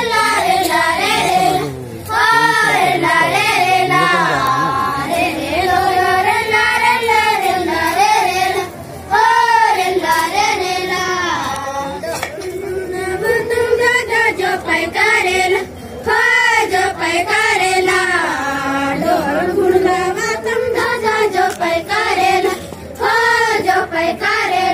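Group of young girls singing a Gondi rela song together, in unison, in long phrases broken by a short pause about every seven seconds.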